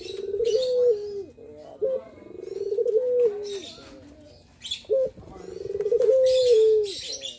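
Male ringneck dove (puter, Barbary dove) cooing its song call three times. Each call is a short note, then a rolling rise, then a long note that steps down in pitch. Other birds chirp in short bursts between and over the coos.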